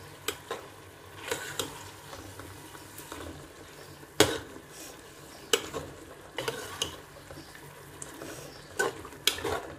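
Steel spoon stirring chicken in yogurt and tomato masala in a large metal pot, scraping and knocking against the pot's sides in irregular strokes; the sharpest knock comes about four seconds in. Under it is a low, steady sizzle of the masala frying.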